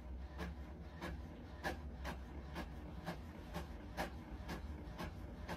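Inkjet printer printing: regular sharp clicks from the print head carriage about twice a second, over a low steady hum.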